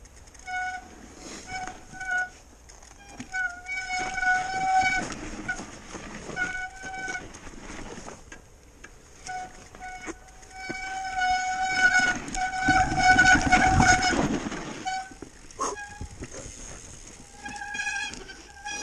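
Mountain bike disc brakes squealing in repeated stretches, some brief and some held for a second or more, as the rider brakes on a downhill descent. A louder rush of noise swells under the squeal about two-thirds of the way through.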